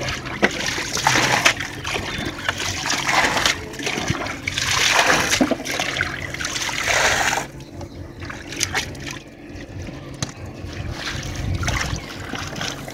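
Water splashing and trickling as a plastic basket scoops fish out of a mesh net in shallow water. The splashing is loud for about the first seven seconds, then softer, with scattered drips and knocks.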